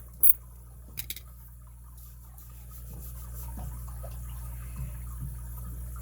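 Handling noise from a brass padlock and its plastic packaging: a few sharp clicks in the first second or so, then soft rubbing and rustling.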